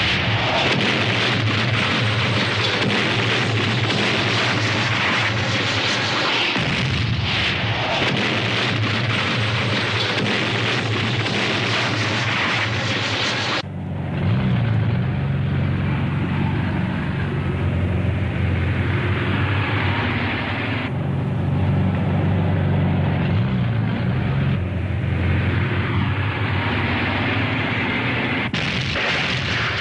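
War-footage battle sound: dense, continuous noise of gunfire and explosions. About halfway through it gives way to a heavier, lower rumble of a military vehicle's engine.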